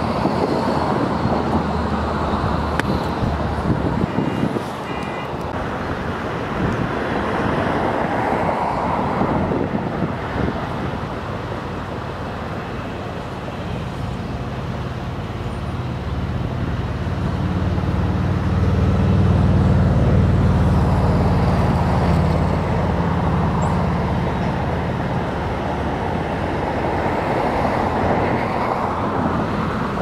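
Road traffic going by steadily, with passing vehicles swelling and fading. A deeper engine hum is loudest around the middle.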